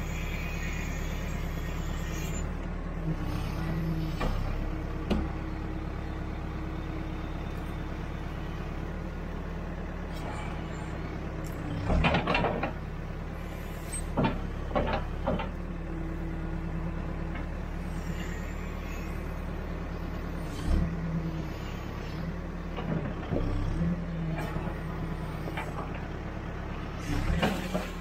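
Backhoe's diesel engine running steadily under digging load, heard from the operator's seat, with the hydraulics working the boom and bucket. Several short clanks and knocks from the bucket and boom, the loudest about twelve seconds in and more near the end.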